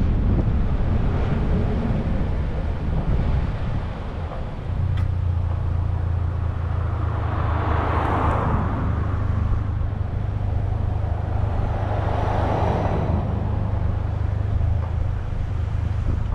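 Wind buffeting the microphone of a camera mounted outside on a vehicle as it slows to a stop, then the vehicle's engine idling with a steady low hum. Two cars pass close by with a rising and fading tyre hiss, about halfway through and again a few seconds later.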